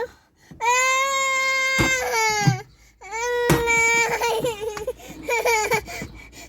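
A young child crying in long, steady wails: one of about two seconds, another starting about three seconds in, and a short one near the end.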